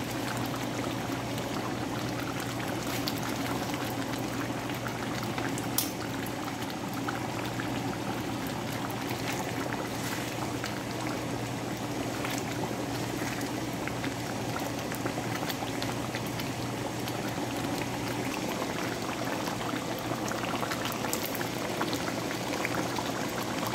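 Thick coconut-milk chicken curry bubbling and popping at a steady simmer in a stainless steel pan as the sauce nears the end of cooking. There is one sharp click about six seconds in.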